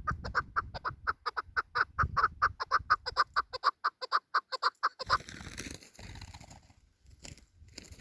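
Chukar partridge calling: a fast, even run of short "chuck" notes, about six a second, that stops about five seconds in. A soft rustling noise follows.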